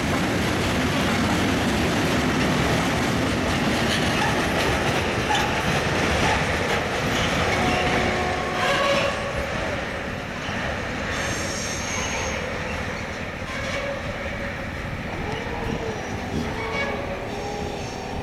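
Freight train of loaded fuel tank wagons rolling past, its wheels clattering steadily over the rail joints. The noise eases off in the second half as the end of the train draws away.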